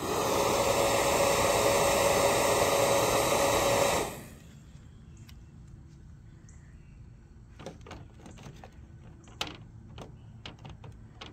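Battery-powered bubble gun's fan motor whirring with a steady whine for about four seconds, then cutting off suddenly. A few light clicks follow near the end.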